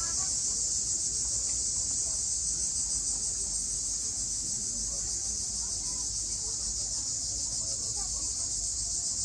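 Steady, high-pitched insect chorus buzzing without a break, with faint voices underneath.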